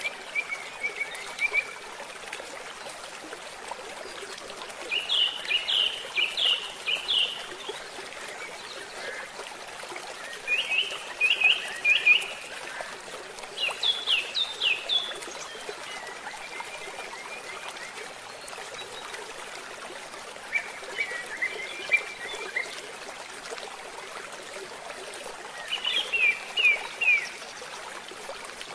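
Water pouring out of a culvert pipe into a channel, a steady rushing wash. Over it, a songbird repeatedly sings short phrases of a few quick, high chirps every few seconds; these are the loudest sounds.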